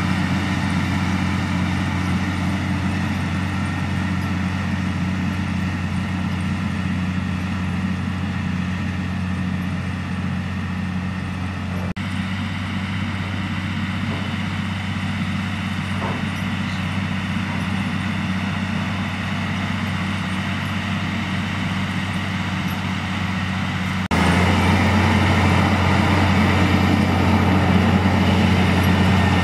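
Large farm tractor's diesel engine running steadily with a deep hum as it pulls a steel drag across loose clay. The sound jumps noticeably louder for the last few seconds.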